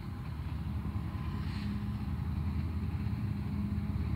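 Two GE GEU40 diesel-electric locomotives working together at the head of a goods train, their engines giving a steady low drone that grows louder as they approach.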